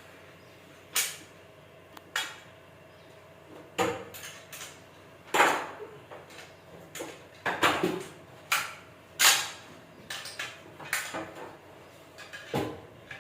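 A run of irregular knocks and clunks, about a dozen, some with a brief ring after them: hard objects being handled and set down.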